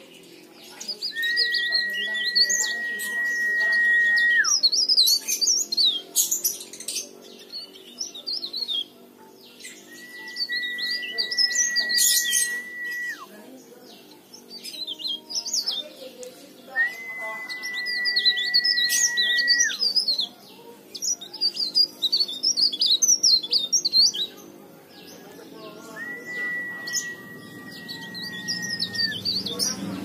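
Cikrak daun (leaf warbler) singing in bouts of fast, high, twittering phrases. Four times, a long level whistle is held for about three seconds and then drops away sharply.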